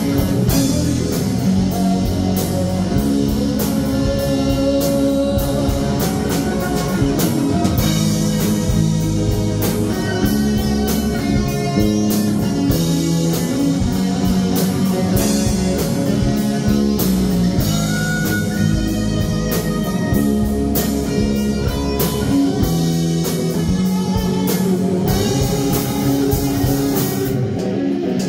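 Live rock band playing an instrumental passage: distorted electric guitars over bass guitar and a drum kit, with a steady beat.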